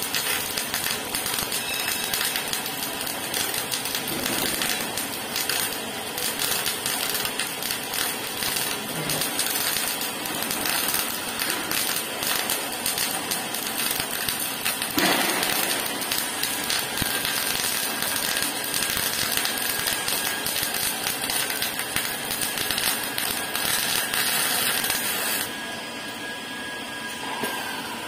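MAG welding arc crackling and spitting steadily as an automatic welding lathe runs a circumferential seam around a rotating track roller. The arc cuts out near the end, leaving a faint steady whine from the machine.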